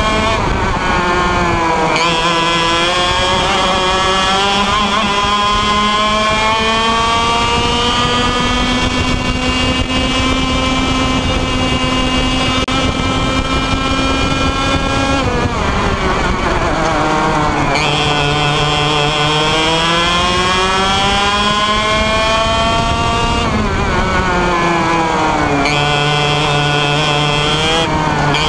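IAME Leopard 125cc two-stroke kart engine at full throttle, its pitch climbing steadily for over ten seconds as it pulls down a straight. About fifteen seconds in the revs drop sharply as the driver lifts for a corner. The engine then pulls up again, drops once more about twenty-three seconds in, and climbs again near the end.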